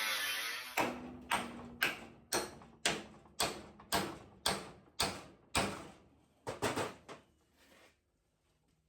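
A power tool running stops under a second in, then a hammer strikes the steel chassis about a dozen times, roughly two blows a second, each ringing briefly, while the old frame head is being knocked loose; it proves tougher than expected.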